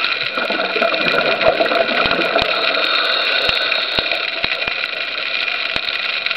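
Underwater ambience: a steady hiss with several steady hums, and scattered sharp clicks at irregular intervals.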